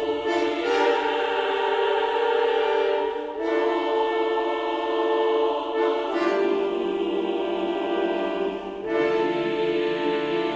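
Background music of slow, sustained chords that change about every three seconds.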